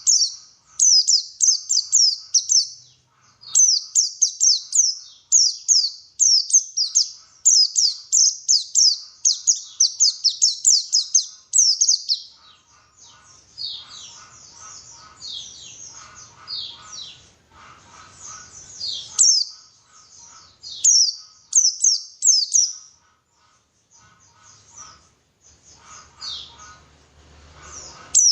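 White-eye (pleci) singing: fast runs of high, thin twittering notes, each sliding downward, in bursts broken by short pauses, with fainter lower chirping underneath.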